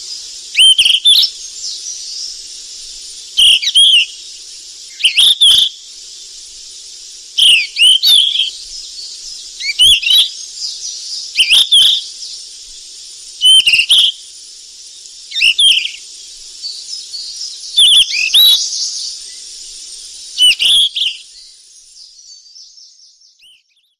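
Flycatcher (sikatan) calling: short, loud whistled phrases that sweep up and down, repeated about every two seconds over a steady high hiss. The sound fades out near the end.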